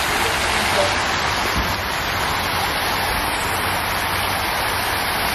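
Fountain jets splashing down into a pond: a steady patter of falling water.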